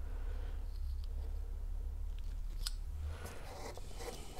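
Small handling sounds at a workbench: a few light clicks partway through, then rubbing and scraping near the end as a small brass ferrule is handled over paper. A steady low hum runs underneath.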